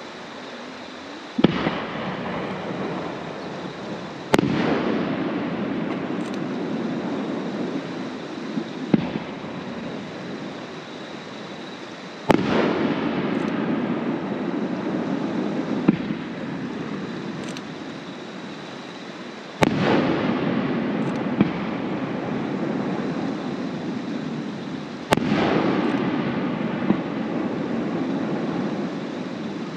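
Aerial fireworks shells bursting: about eight sharp bangs a few seconds apart, each followed by a few seconds of fading crackle.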